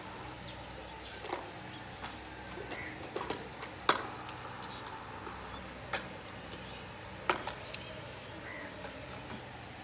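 Dry twigs and stalks snapping and crackling as a wood fire is lit in a clay stove: scattered sharp clicks, loudest about four seconds in and again around seven seconds.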